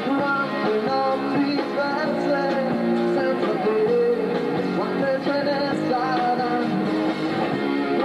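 Live band playing: drum kit, electric keyboards and guitar, at a steady loudness.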